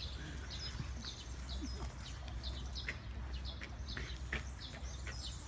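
Small birds chirping in the trees, short high-pitched calls about two a second, over a low steady hum.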